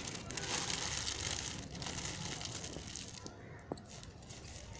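A printed plastic packet crinkling as it is crumpled by hand, loudest in the first couple of seconds and then fainter, with a single small click about three and a half seconds in.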